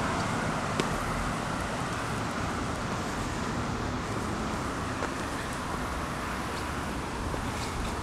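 Road traffic noise from a multi-lane boulevard: a steady hiss of passing cars that slowly grows quieter.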